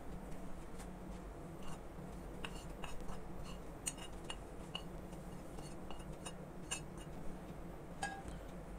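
Light clinks and scrapes of a metal spoon on a ceramic plate as ground spices are scraped off into a glass mixing bowl, in scattered small ticks.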